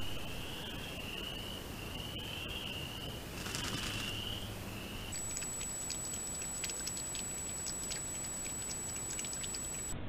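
Outdoor ambient sound picked up by a trail camera. A steady, high trill wavers slightly in pitch for about five seconds, with a brief rustle near the middle. Then it gives way to a thin, steady high electronic whine and scattered soft clicks.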